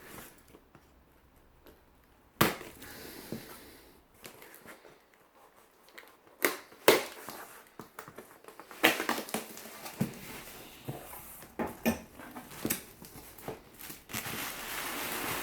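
A parcel being opened by hand and its packing material handled: a sharp click, then scattered crackles, crinkles and rustles that grow denser near the end.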